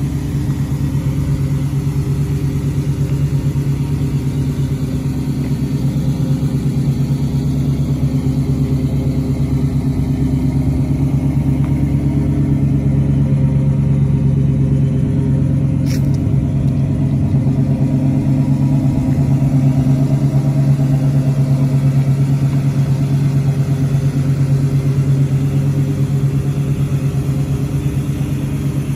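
Chevy 305 small-block V8 idling steadily through dual Flowmaster two-chamber mufflers.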